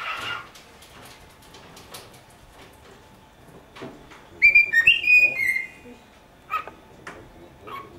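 Cockatiel whistling: a brief call at the start, a loud run of short whistled notes about halfway through, then a few short chirps near the end.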